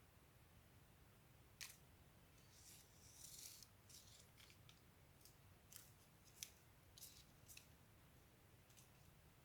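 Faint, scattered short clicks and crisp snips, about a dozen, over quiet room tone: small objects being handled while making slime.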